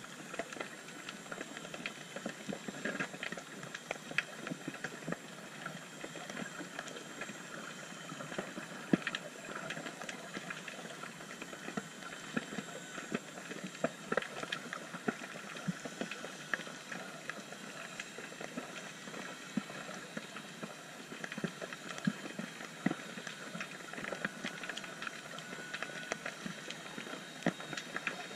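Underwater ambience on a rocky reef: a steady crackle of many small, irregular clicks.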